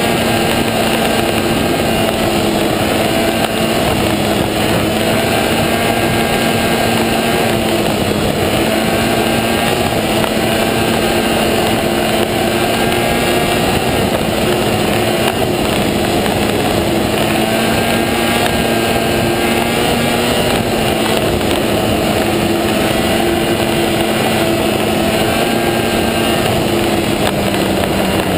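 Snowmobile engine running steadily at cruising speed along a snow trail, its pitch holding nearly constant, with track and wind noise underneath.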